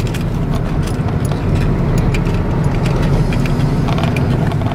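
Car driving slowly, heard from inside the cabin: a steady low rumble of engine and road noise with many small ticks and knocks over it.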